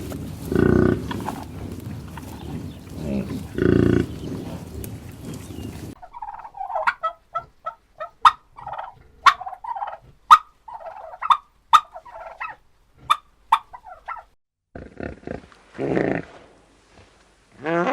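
Farm animal calls from cut-together clips: a few low calls in the first seconds, then an abrupt switch to a run of short, quick poultry calls with clicks, and another brief burst of calls near the end.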